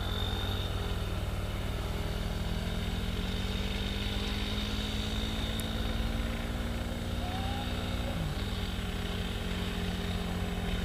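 Steady engine drone that dips briefly in pitch about eight seconds in, then carries on.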